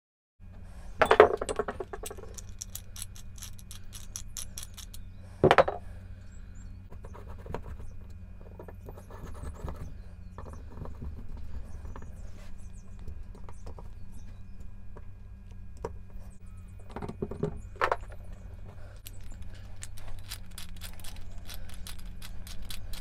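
Steel parts of a four-jaw self-centring lathe chuck being handled and assembled: small clinks, scrapes and rattles of the jaws, chuck key and screwdriver, with louder metal knocks about a second in, around five seconds in and near seventeen seconds. A steady low hum runs underneath.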